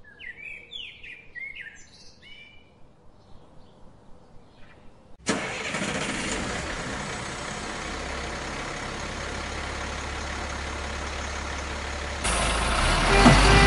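Birds chirping faintly for the first few seconds. Then a steady rushing noise cuts in suddenly and steps louder near the end, where a brief horn-like tone begins.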